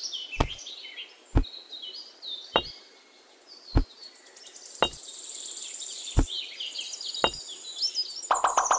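Seven light, sharp clicks at an even pace of about one a second as miniature clay bricks are set down, over a background of birds chirping.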